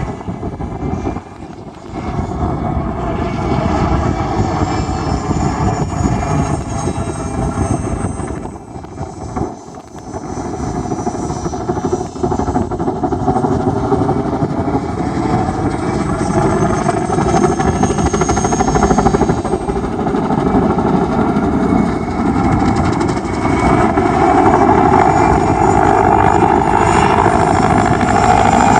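Mil Mi-2 helicopter's twin turboshaft engines and rotor running steadily. The sound drops away briefly twice and grows louder near the end.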